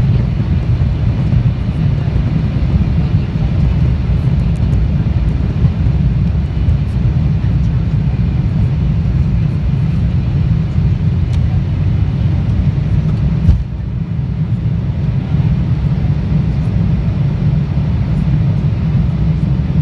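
Embraer 175 regional jet's engines at takeoff power, heard inside the cabin, with a heavy steady rumble from the takeoff roll. About thirteen and a half seconds in there is a brief knock, after which the rumble eases slightly as the jet lifts off the runway.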